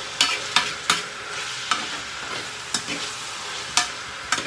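Mixed vegetables sizzling in a frying pan with a steady hiss while a metal spoon stirs them, clinking and scraping against the pan about seven times at irregular intervals.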